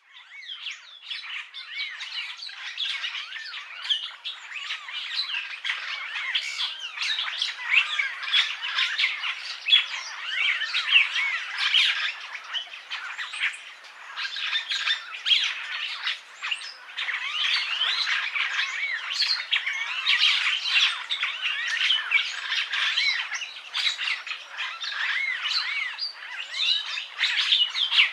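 Purple starling (Lamprotornis purpureus) singing: a dense, continuous chatter of harsh notes mixed with short, bending whistles, without a break.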